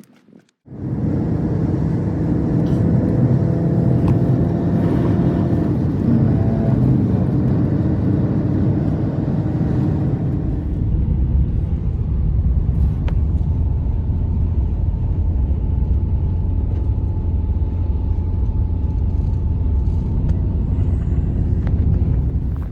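A motor vehicle's engine running steadily and loudly, with an even hum over a rumble. It starts suddenly about a second in and turns to a deeper rumble about halfway through.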